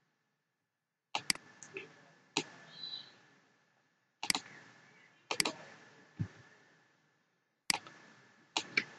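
Computer mouse buttons clicking: about a dozen sharp clicks at irregular intervals, several in quick pairs like double-clicks.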